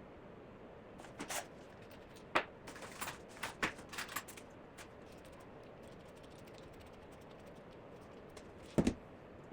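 Scattered light clicks and knocks of small hardware and tools being handled during wood assembly, clustered in the first half, then one heavier thump near the end.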